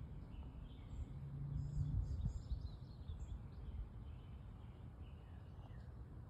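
Outdoor ambience: faint bird chirps scattered over a steady low rumble, which swells and peaks about two seconds in.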